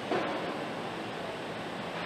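Steady hiss of factory-floor machinery from an automated battery-module assembly line, briefly a little louder just after the start.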